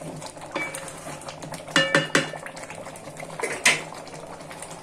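Wooden spatula stirring a thick beef and chana dal curry in a nonstick pan, with a quick cluster of sharp knocks against the pan about two seconds in and one more loud knock near the end.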